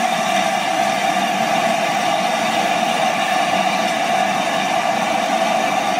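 Stationary LNER A4 steam locomotive 'Sir Nigel Gresley' hissing steam steadily: a loud, constant hiss with a mid-pitched tone running through it.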